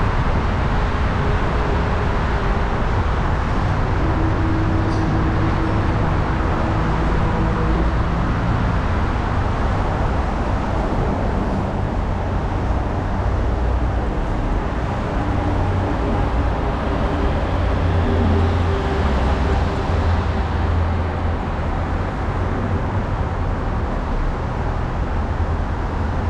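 Steady road noise of a car driving on a city street: a continuous low rumble of tyres and engine, with a faint hum that comes and goes.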